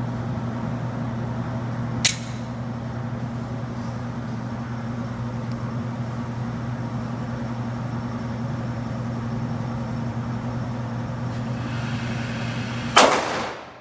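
Two pistol shots on an indoor range, about eleven seconds apart: a sharp crack about two seconds in and a louder one near the end with a brief ring, over a steady low hum.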